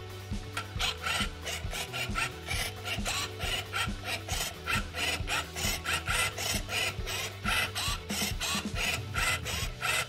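Moyu Cube Robot's motorised grippers turning the faces of a 3x3 speed cube in quick succession: a fast, uneven run of plastic clicks and clacks, about three or four turns a second, over a steady low hum.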